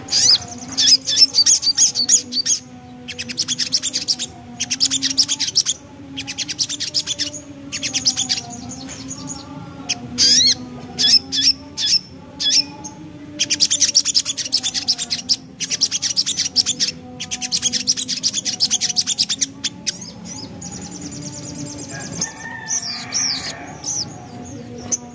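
Little spiderhunter (sogok ontong) singing in repeated bursts of very fast, high chattering trills, each a second or two long with short gaps between, over a faint low steady hum.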